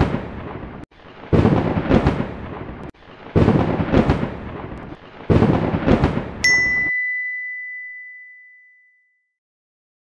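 Sound effects for an animated subscribe-and-like graphic: three rumbling, thunder-like swells roughly two seconds apart, then a single bright bell ding that rings out and fades.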